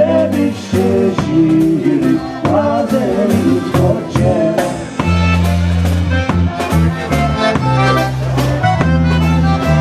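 Live polka band playing a waltz: two men singing over drum kit and electric bass for about the first half, then a button concertina carrying the melody over held notes and the steady drum beat.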